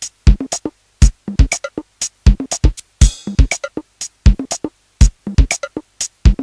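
Electronic background music with a drum-machine beat: hard kick-drum hits about every second with short, quick notes between them, and a cymbal crash about three seconds in.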